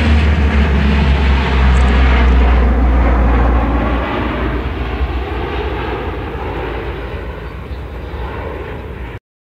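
Lockheed C-130 Hercules' four turboprop engines passing low overhead in a fly-by: a deep propeller drone that drops in pitch as the aircraft goes by, then fades as it flies away. It cuts off suddenly near the end.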